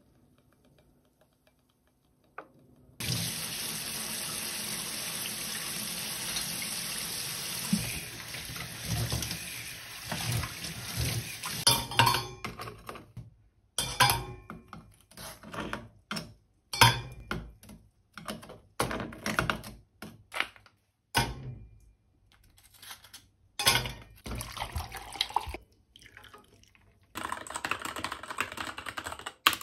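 Water running steadily for several seconds, then the sharp, irregular clinks of ice cubes being worked out of a plastic tray and dropped with metal tongs into a stainless-steel tumbler. Near the end, fast typing on a mechanical keyboard.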